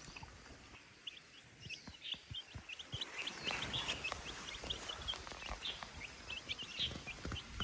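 Birds cheeping outdoors: many short, high chirps that start about a second in and grow denser from about three seconds in, over faint scattered taps and rustling.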